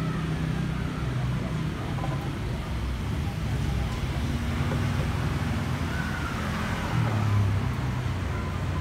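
Street traffic: engines of passing vehicles running steadily, one growing louder about seven seconds in, with faint voices underneath.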